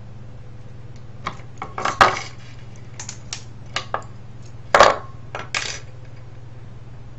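Small metal and plastic parts of a stripped cassette recorder clinking and clattering as they are handled and dropped: a run of irregular sharp clicks, the loudest clatter about five seconds in. A steady low hum runs underneath.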